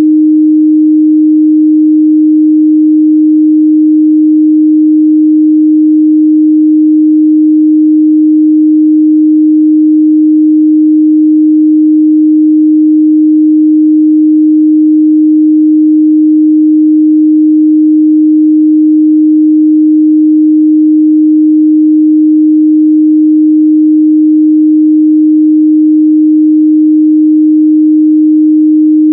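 A steady, loud 308 Hz pure sine test tone held at one pitch and level throughout.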